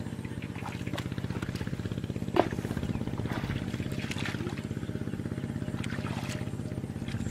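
A small engine running steadily at an even, fast chug, unseen. A single sharp click sounds about two and a half seconds in.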